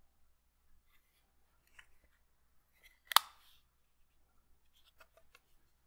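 Firebox Folding Chef Knife being unfolded by hand: soft handling sounds, then one sharp click with a short ring a little over three seconds in as the blade swings open and locks. A few light clicks follow near the end.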